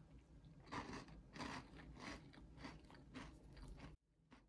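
A Bisco cream sandwich biscuit being bitten and chewed: about six crisp crunches, roughly two a second, which cut off suddenly near the end.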